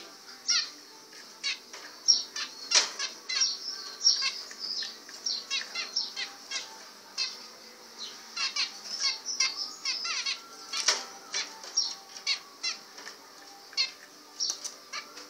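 Zebra finches singing: a fast, irregular string of short high-pitched chirps, several a second, some falling in pitch.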